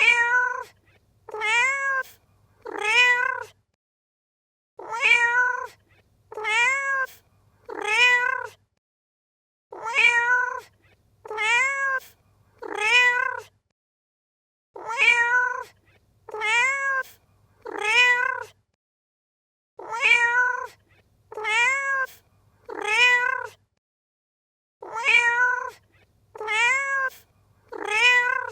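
Domestic cat meowing in sets of four, about one meow a second, each meow rising then falling in pitch. A gap of about a second and a half separates the sets, and the identical set repeats every five seconds as a loop.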